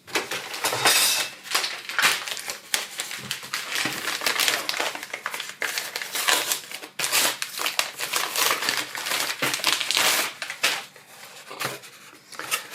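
Plastic packaging crinkling and crackling as the replacement laptop battery is handled and unwrapped, thinning out near the end.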